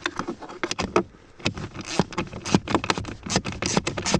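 Irregular clicks, knocks and light rattles of hands and tools working a car's heater blower motor into its mounting under the dashboard.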